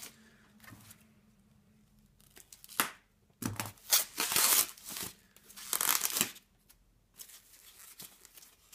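Thin foam packing wrap being pulled apart and peeled off a model airplane part by hand: rustling and tearing in a few sharp bursts, loudest about three and a half to six seconds in, with softer crinkling after.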